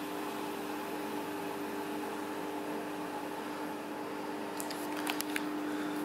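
Samsung front-loading washing machine running on rubber anti-vibration feet: a steady hum with a few held tones, and a few faint clicks about five seconds in.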